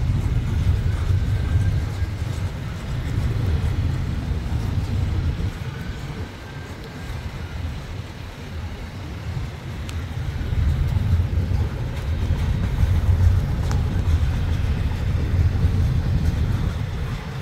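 Double-stack intermodal freight train's well cars rolling past on the rails: a steady low rumble of wheels and cars that swells and eases, with a faint high whine now and then.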